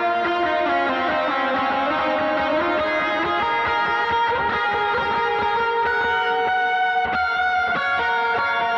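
Gretsch hollow-body electric guitar playing a lead solo through overdrive, delay and heavy reverb. The notes are long and sustained and blur into one another.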